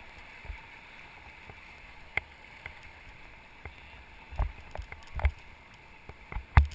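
Steady rush of river water around a raft, with scattered sharp knocks and low thumps, more of them in the second half and the loudest near the end.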